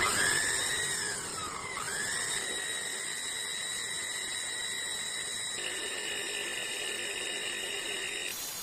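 A small high-speed motor whining at a high pitch, starting suddenly. Its pitch dips twice in the first two seconds, the second time falling to about half before recovering, then holds steady.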